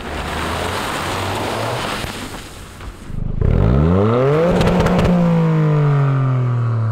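Toyota GR Yaris's turbocharged three-cylinder engine, breathing through a Milltek aftermarket exhaust, driving on a dirt road. After a steady stretch of engine and tyre noise, the engine revs up sharply about three and a half seconds in, then its note falls away slowly toward the end.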